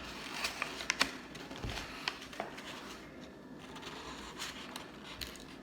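Scattered light clicks and taps with a few soft knocks, at a low level over quiet room tone.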